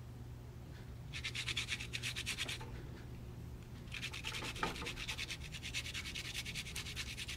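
Garlic cloves rubbed on a small handheld metal grater: quick, rapid rasping strokes in two bouts, the second starting about four seconds in.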